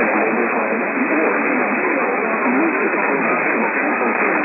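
Static-filled radio reception: a steady hiss with muffled, unintelligible talk underneath, heard through a narrow, muffled radio bandwidth.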